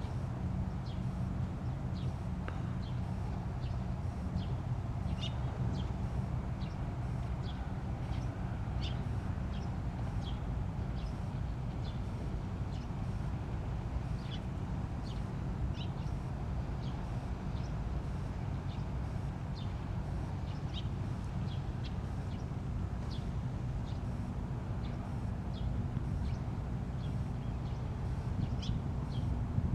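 Outdoor ambience: a steady low rumble with short, high bird chirps scattered throughout.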